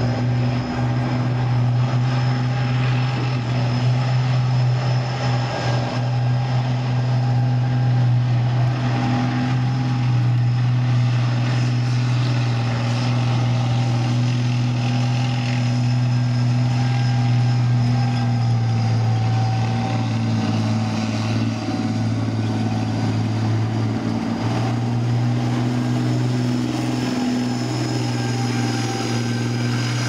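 Heavy tracked armoured vehicle's engine running: a loud, steady deep drone with a fainter high whine held above it.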